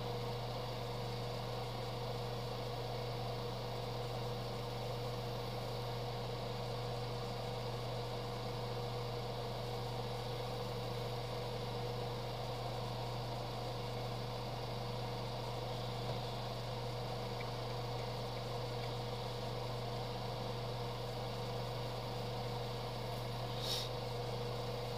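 Steady hum of a running electric motor, such as the fan of a hobby spray booth or an airbrush compressor, with an even whirring hiss over it.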